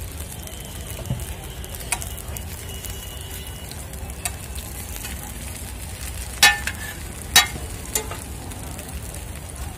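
Potato tikki patties sizzling as they shallow-fry in oil on a flat griddle (tawa). A metal spatula clacks against the griddle several times, loudest twice in the second half.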